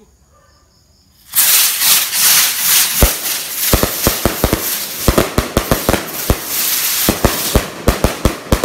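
Firework going off. A loud rushing hiss starts suddenly about a second in. From about three seconds in, sharp cracks and pops come irregularly over it, several a second.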